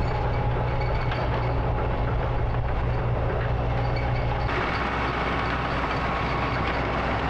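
Quad (ATV) engine running steadily, its sound shifting slightly about four and a half seconds in.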